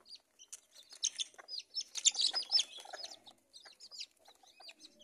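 Young chicks peeping in quick, short, high calls, busiest around two seconds in, mixed with a hen's low clucks.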